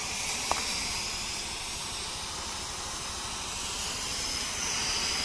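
High-pressure spray gun hissing steadily as a jet of chemical spray leaves its nozzle, fed by an HTP sprayer pump. A short sharp tick about half a second in.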